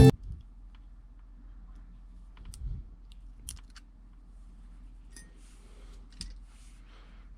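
Faint, scattered clicks and a few short scratchy rustles from small hand tools and plastic and metal parts being handled while a keyboard's USB plug is repaired.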